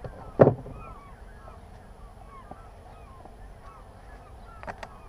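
A steady chorus of distant birds, many short overlapping calls. It is broken by one loud knock about half a second in and two sharp clicks near the end.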